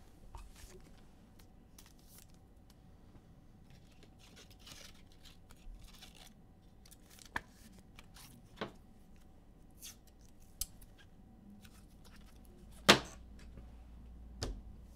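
Trading cards and foil packs being handled: soft rustling broken by scattered sharp clicks, with one louder snap near the end.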